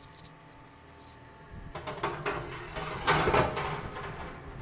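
Knocks, scrapes and rattles of parts being handled in a built-in microwave oven, with a couple of clicks at the start and the busiest clatter a little past the middle.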